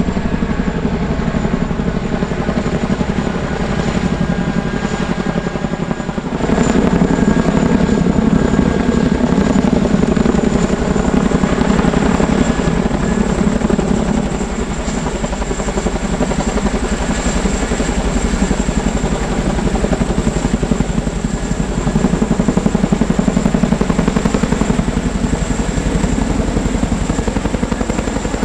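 Military helicopter running close by: steady rotor beat with a high turbine whine, getting louder about six and a half seconds in.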